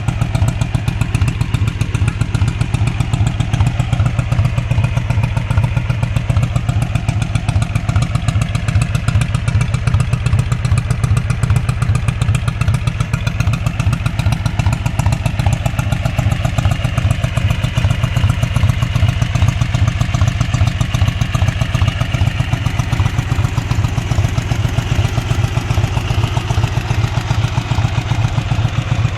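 Dnepr MT-11 motorcycle's air-cooled flat-twin engine running steadily at an even speed, with no revving.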